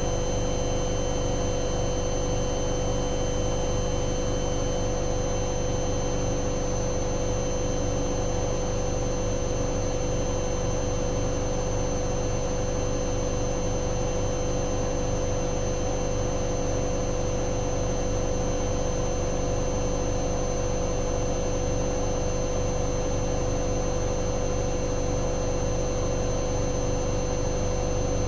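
Hoover Dynamic Next washing machine spinning at a steady high speed on a spin-only cycle: a constant motor whine with several high steady tones over a low drum rumble.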